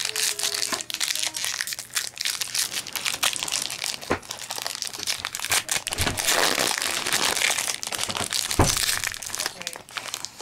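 Shiny foil wrapper of a Pokémon trading card game booster pack being torn open and crinkled by hand, a dense run of crackling and rustling.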